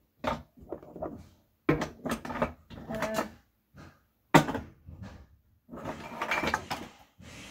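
Rummaging: a string of knocks, clatters and rustles as objects are handled and moved about, with sharp knocks about two seconds in and again a little past the middle.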